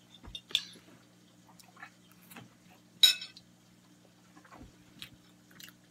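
A fork clinking against a bowl while eating, a few light clicks and one sharp clink about three seconds in, over a steady low hum.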